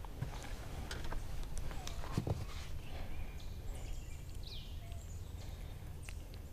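Lakeside outdoor ambience: birds calling now and then over a low steady rumble, with scattered clicks and knocks from a bluegill and tackle being handled in the boat. The loudest is a single knock about two seconds in.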